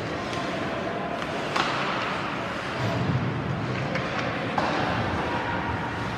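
Ice hockey play in an echoing indoor rink: a steady wash of arena noise with two sharp knocks from the play on the ice, about one and a half seconds and four and a half seconds in.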